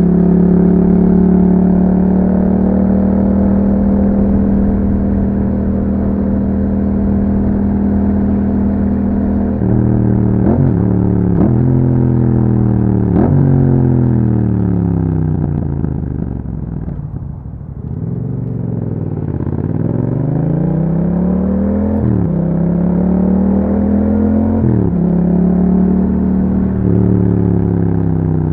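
Yamaha MT-07's parallel-twin engine through an Akrapovic exhaust with a dB killer, heard riding. It runs at a steady cruise, then slows, with engine speed falling in steps to a low point about two-thirds through. It then accelerates again, with gear changes about 22 and 25 seconds in, and settles back to a steady cruise.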